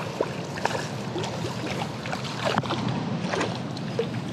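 Water splashing and lapping around a kayak while a hooked bass is played and landed, with scattered light clicks and knocks.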